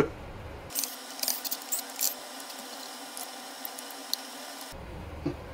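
Plastic housing of a Sea-Doo sea scooter being handled: a sharp click at the start, then scattered light clicks and taps of the plastic parts as it is turned over.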